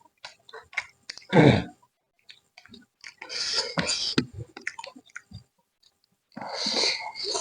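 Close-up mouth sounds of a person eating: wet chewing and lip smacks with many small clicks. There is a louder burst about a second and a half in, and longer noisy stretches around three to four seconds in and near the end.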